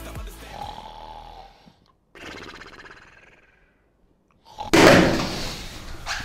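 Background music fades out in the first second and a half. A young man snores while asleep at a desk: one soft snore, a pause, then a much louder burst of noise about three-quarters of the way through.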